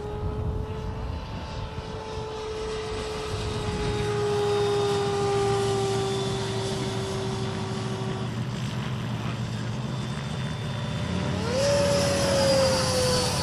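The 6S electric ducted-fan motor of an RC de Havilland DH-112 Venom jet model whining in flight, its pitch slowly falling as it moves away. Near the end a louder pass: the whine rises sharply, then slides down again as the jet goes by.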